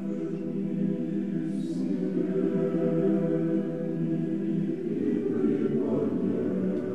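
Russian Orthodox monastic choir singing unaccompanied chant from Matins in long sustained chords, moving to a new chord about five seconds in.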